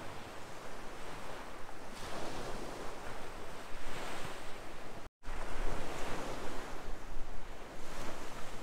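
Gulf surf breaking and washing up the beach, with wind on the microphone; the sound swells and falls with the waves and drops out for an instant about five seconds in.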